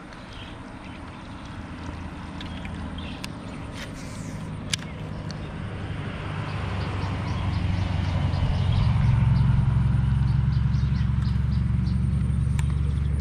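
Motor vehicle engine drawing near, growing louder over several seconds and then running steadily with a low drone. A few sharp clicks sound now and then.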